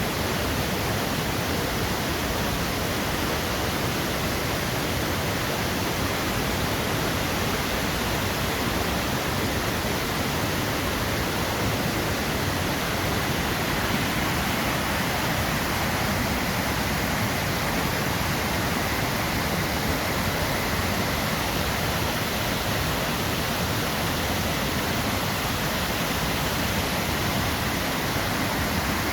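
Waterfall: water falling and rushing steadily over rocks, an even, unbroken roar of water.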